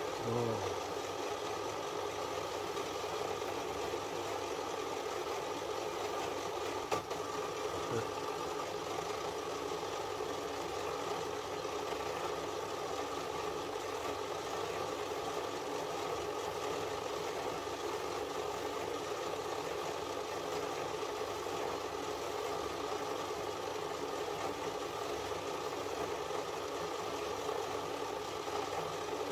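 Small bench metal lathe running steadily while a needle file is held against the small spinning workpiece, with a brief click about seven seconds in.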